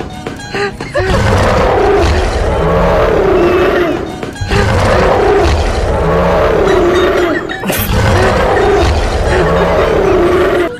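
Big-cat roar, three long roars of about three seconds each, the same roar repeated one after another.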